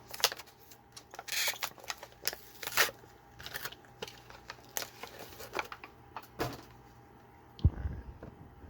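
Hands opening the packaging of a Matchbox Premiere diecast car: a run of plastic clicks, crinkles and rustles, with a dull thump about three-quarters of the way through.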